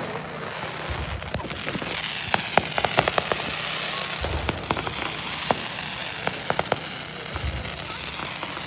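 Aerial fireworks crackling: dozens of quick sharp pops in irregular clusters over a steady hiss. A few deeper thumps come about a second in, around four seconds and near seven and a half seconds.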